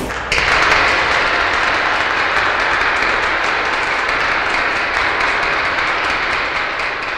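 Applause, many hands clapping in a dense, even patter. It starts abruptly and slowly fades out.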